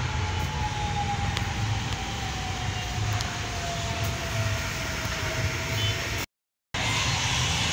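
Steady outdoor city background noise with a low rumble, and a faint single tone that slowly falls in pitch. The sound drops out completely for about half a second, six seconds in.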